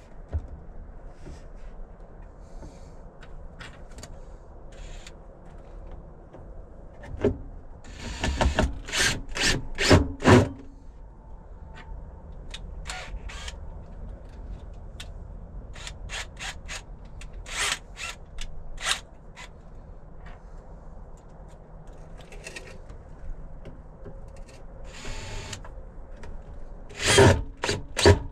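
A solid wood splashback strip being handled and fitted against the back of a wooden worktop: three clusters of sharp wooden knocks and clacks, with rubbing of wood on wood between them.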